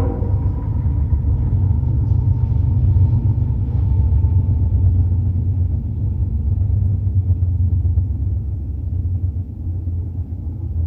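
BNSF double-stack intermodal freight train rolling through a grade crossing: a steady, loud low rumble from its diesel locomotives and stack cars, easing slightly near the end.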